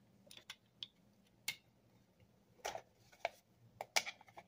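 Scattered light clicks and taps of Glock 40 pistol parts handled during reassembly: the recoil spring assembly and barrel going into the slide, and the slide being set back onto the frame, with a quicker run of clicks near the end.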